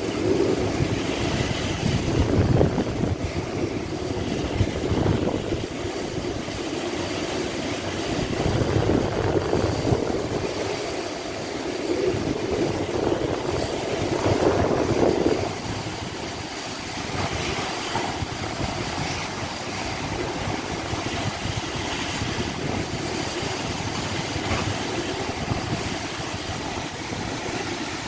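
Tropical-storm wind and heavy rain: a continuous rushing noise that swells in several stronger gusts in the first half, then settles to a steadier rush.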